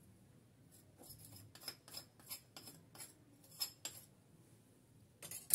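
Light taps and scrapes on a small bowl as powdered pastry-cream mix is shaken out of it into a saucepan of milk, about three faint clicks a second, then one louder knock near the end.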